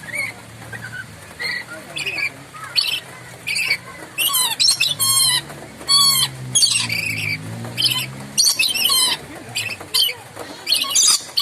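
Moluccan lory (nuri Maluku) giving loud, sharp, screeching calls, a dozen or so short squawks in irregular bursts.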